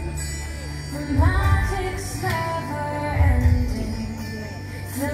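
The show's soundtrack music, with singing over it and a deep bass beat about once a second.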